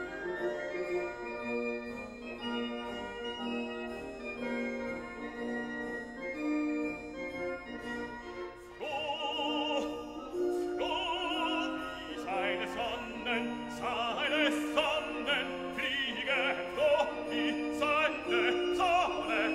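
Background classical music: a slow keyboard passage, then an operatic singing voice with wide vibrato comes in about nine seconds in.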